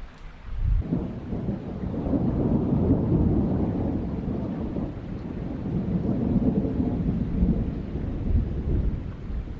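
Rolling thunder: a long, low rumble that swells about a second in and rolls on, surging and easing, before dying down near the end.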